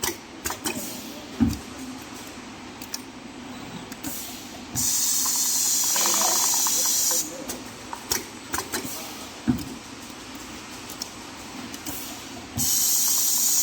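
A loud, even hiss that cuts in suddenly about five seconds in, stops again after about two and a half seconds, then cuts back in near the end. Scattered clicks and a few dull knocks sound in the quieter stretches between.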